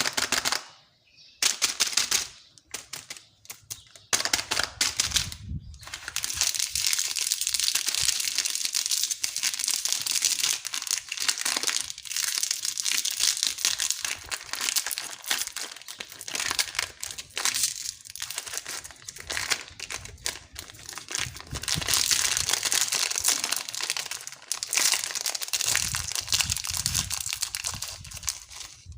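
Candy wrappers crinkling and tearing as lollipops are unwrapped by hand: a dense, near-continuous crackle of small clicks, broken by short pauses in the first few seconds.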